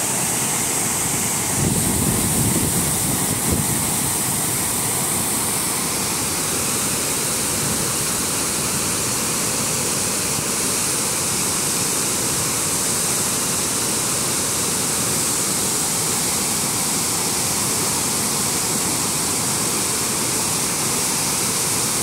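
Wide waterfall in full flood, muddy water pouring over a rock ledge in a dense, steady rush. A brief low rumble adds to it about two seconds in.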